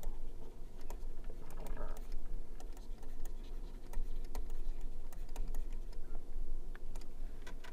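Light, irregular taps and scratches of a stylus writing on a pen tablet.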